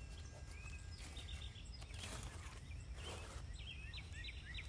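A shovel digging into garden soil, two short scraping pushes about two and three seconds in, with birds chirping repeatedly in the background.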